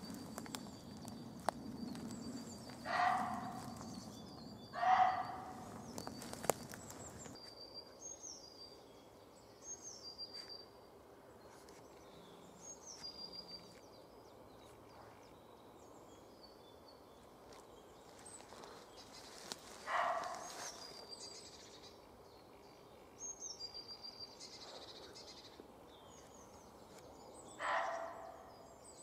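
Muntjac deer barking: short single barks about three seconds in, again two seconds later, then around twenty seconds and near the end. Small birds chirp between the barks, and footsteps crunch through dry leaf litter for the first several seconds until the walking stops.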